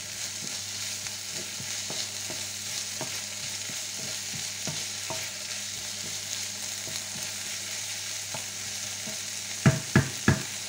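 Diced lardons and onions sizzling as they brown in a non-stick frying pan, stirred with a wooden spatula that scrapes and ticks against the pan. Near the end, three sharp knocks of the wooden spatula against the pan.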